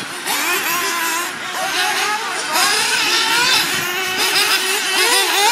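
Several nitro RC buggies' small two-stroke glow engines buzzing at racing speed, their overlapping pitches rising and falling as they rev up and back off.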